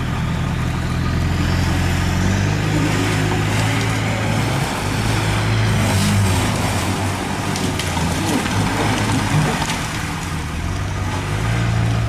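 Off-road 4x4 engine running under load, its pitch shifting a little as the vehicle works its way out of a muddy creek.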